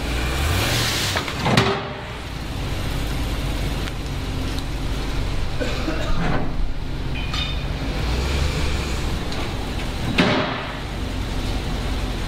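Ram 2500 pickup's engine running at low speed as the truck creeps onto a two-post lift, with a brief rise in revs about a second in and a few short rushes of noise around two, six and ten seconds in.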